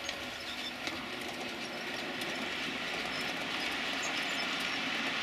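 Model train running along the layout's track, its running noise growing slowly louder as it comes closer, with a faint click over a rail joint about a second in.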